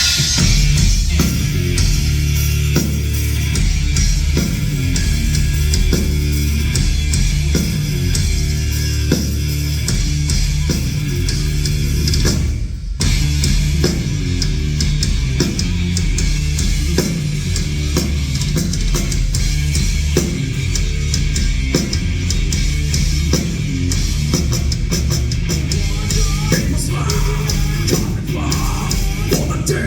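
Live heavy metal band playing at full volume, with distorted guitars, bass and a pounding drum kit. The band stops dead for an instant about a third of the way in, then comes straight back in.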